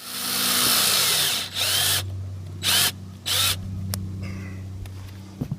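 Power drill driving a wood lag screw through a solar panel mounting bracket into the RV roof: a long continuous run, then three short trigger bursts as the screw seats, with a steady low motor hum underneath.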